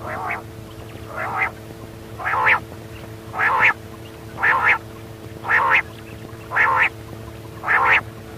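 Quail (batair) calling: a short call repeated about once a second, eight times, the first few quieter and then steady, over a faint steady hum.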